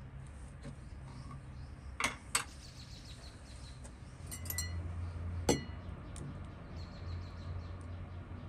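Glass clinking from a jar of preserves being opened and handled among glass dishes: two sharp clicks about two seconds in, a few ringing clinks a couple of seconds later, then one more sharp clink.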